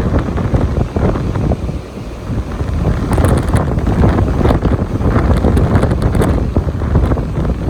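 Strong wind buffeting the microphone, a loud low rumble that eases briefly about two seconds in.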